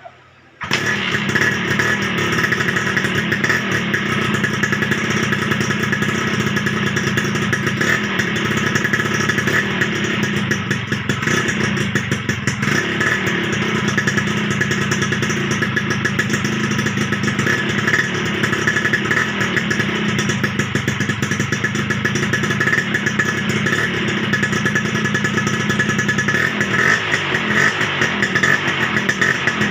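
1991 Suzuki Crystal motorcycle's 110 cc two-stroke engine running steadily. It comes in abruptly about half a second in, with small changes in pitch near the end.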